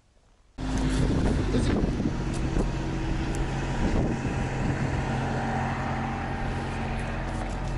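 A motor vehicle engine running steadily, cutting in abruptly about half a second in, with wind on the microphone and a few light knocks.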